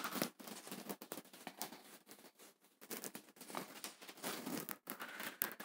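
Whiteboard eraser wiping marker writing off a whiteboard: faint, irregular rubbing and scraping strokes.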